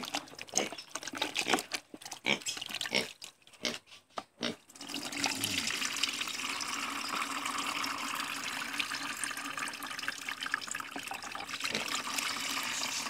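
Fermented fish-and-molasses liquid (fish amino acid) scooped from a plastic bucket with a plastic dipper, with splashes and knocks. From about five seconds in, a steady pouring stream runs through a wire-mesh strainer into a plastic bucket.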